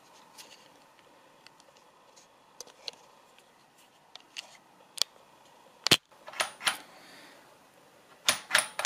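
Light metal clicks and knocks from a K20Z1 manual transmission's shift selector and case being handled, with one sharp knock about two thirds of the way through. Near the end comes a quick run of clicks as the selector is wiggled up and down, the free movement that shows the gearbox is in neutral.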